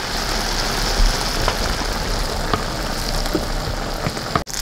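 Batter-coated cempedak fritters deep-frying in a wok of hot oil: a steady sizzling and bubbling with a few small pops. The sound drops out for an instant near the end.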